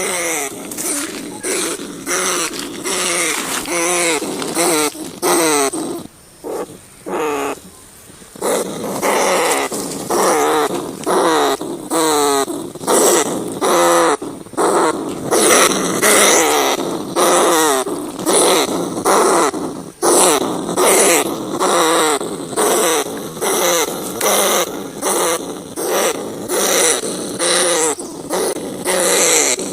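Rats squealing and growling in a rapid run of short, wavering calls, one after another, with a quieter spell about six seconds in.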